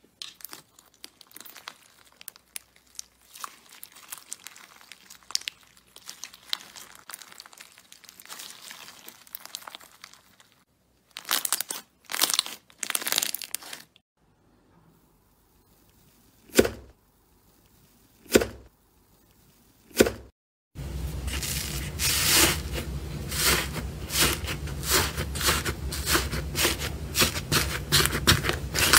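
Hand-worked slime crackling and crinkling: scattered small crackles, then short loud crackling bursts and three separate single bursts as a crunchy slime with small tube-shaped pieces is squeezed and stretched. About two-thirds of the way through, a different slime is pressed, and the crackling becomes dense and continuous.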